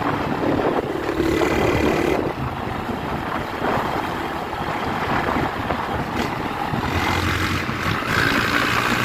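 Honda CG Start single-cylinder motorcycle engine running through its new exhaust while riding, the engine note shifting a few times, with wind rushing over the helmet-mounted camera.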